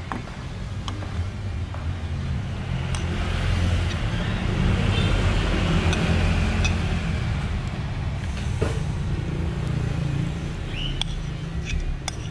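A metal spoon scraping and knocking against a plate as soft cooked boba pearls are pushed off it into a pan of palm-sugar syrup, with a few sharp clicks, over a steady low rumble.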